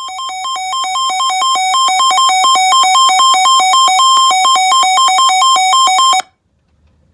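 Synthesized electronic beeping that alternates rapidly between two notes, about ten pulses a second, swelling in over the first couple of seconds and cutting off abruptly about six seconds in.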